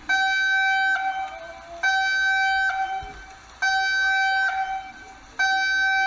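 Emergency alert system alarm tone: a steady mid-pitched electronic beep, each about a second long, repeating about every two seconds, four times.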